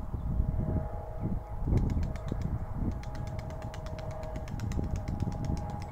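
Outdoor ambience: an irregular low rumble of wind on the microphone, a steady distant hum, and a fast run of faint ticks through the middle.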